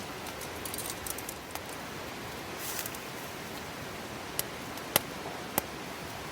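Metal cooking tongs clicking and rattling against a pot, ending with three sharp clicks about half a second apart, over a steady hiss.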